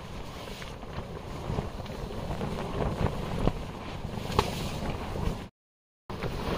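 Wind buffeting a nylon dome tent from inside: a steady low rumble of gusts on the microphone with the tent fabric rustling and crackling. The sound cuts out abruptly for about half a second near the end.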